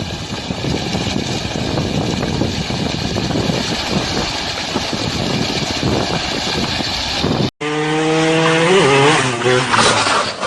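A motor engine running steadily. About seven and a half seconds in it cuts off abruptly and a loud, drawn-out pitched sound follows, wavering toward the end.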